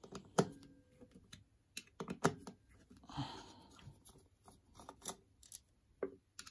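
Scattered light clicks and taps of a screwdriver working the small accelerator pump cover screws out of a Harley-Davidson Keihin CV carburettor, with a brief scrape about three seconds in.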